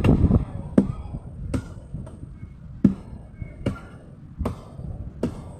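A run of sharp knocks or thuds, roughly one every 0.8 seconds, over a low rumbling background; the first is a louder cluster.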